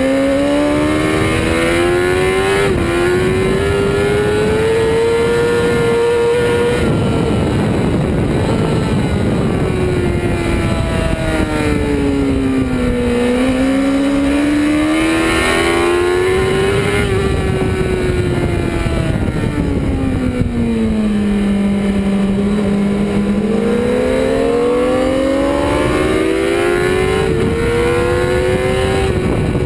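Honda CBR600's inline-four engine at full track pace. Its pitch climbs hard, then drops as the bike slows, twice over: a climb through the opening seconds, a fall, a climb again, a deeper fall in the middle, and a last climb near the end. A steady rush of wind runs underneath.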